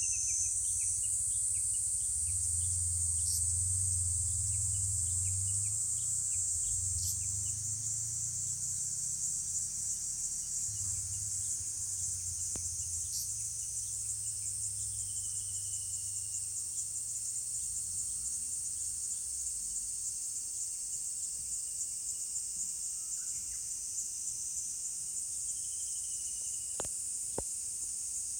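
Steady, high-pitched chorus of summer insects shrilling without a break, over a faint low rumble. A faint falling call sounds twice, and two sharp clicks come near the end.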